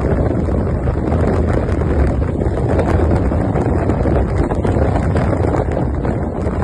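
Steady, loud wind noise buffeting the microphone on a moving motorcycle.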